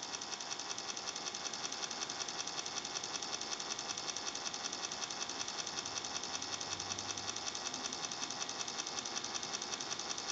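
The animated Mickey Mouse lamp's servo motor and gear pack whirring steadily with a fast, even pulsing. The servo is running freely while the figure tries to go through its motions, a sign of a faulty gear pack.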